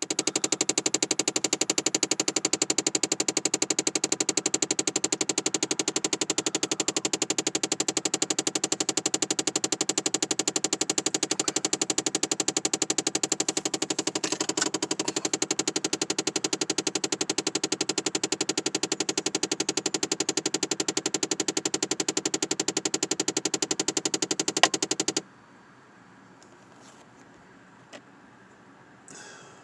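Rapid, steady clicking from inside a 2009 Chevrolet Impala, set off by opening a door, which the owner calls a design flaw of the car. The clicking stops suddenly about 25 seconds in.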